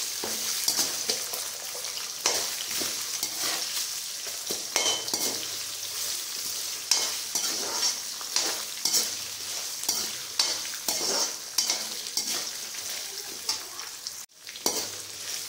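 Garlic, ginger, dried red chillies and urad dal sizzling in hot sesame oil in a metal kadai, stirred with a perforated metal spatula that scrapes and taps against the pan again and again. The sound drops out for a moment near the end.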